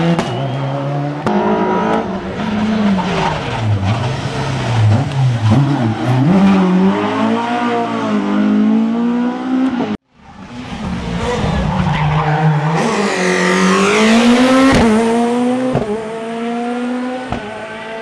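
Rally car engines at full throttle on a tarmac stage, revving up and falling back again and again through gear changes. The sound cuts off abruptly about halfway, then a second car's engine fades in and climbs and drops the same way, with a few sharp cracks near the end.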